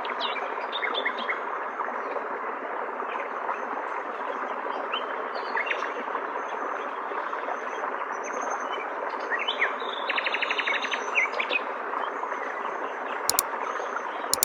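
Stream water flowing steadily, with small songbirds chirping over it and a quick trill about two thirds of the way through. Two sharp clicks come near the end.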